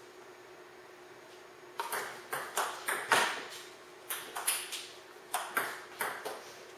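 Table tennis rally: a ping-pong ball clicking sharply off paddles and the table top in quick alternation. The clicks start about two seconds in and come a few per second, with one short pause midway.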